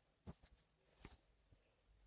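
Near silence: room tone with a few faint knocks and clicks, one about a quarter second in and a sharper one about a second in.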